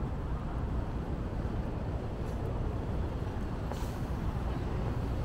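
Steady low rumble of road traffic on a busy city street, with one brief sharp click about three-quarters of the way in.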